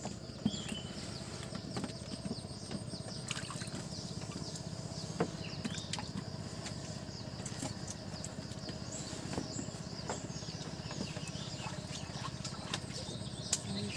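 Steady low hum of a distant motor over still water, with a few faint bird chirps and small clicks.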